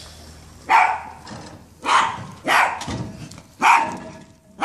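Small dog barking repeatedly, a string of sharp barks about one a second.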